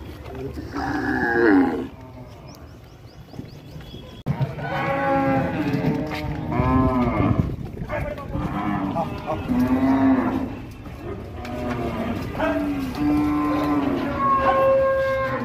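Herd of zebu cows mooing, many long calls overlapping one another. There is one call near the start and a lull, then the mooing grows louder and nearly continuous from about four seconds in.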